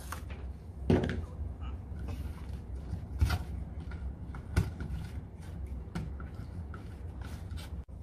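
A few short knocks and rustles from wires being handled at a metal junction box, over a steady low hum.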